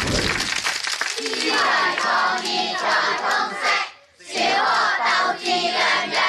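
A group of schoolchildren chanting a Cantonese slogan in unison, in two phrases with a short pause between them.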